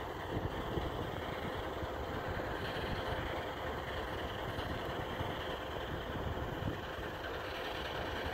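Diesel locomotive engine running steadily, with a constant low rumble and a thin steady hum.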